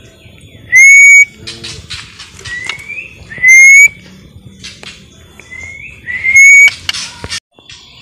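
A string of five short rising whistles, each about half a second long, three of them loud. Short scratchy chattering comes between them, about two seconds in and again near seven seconds.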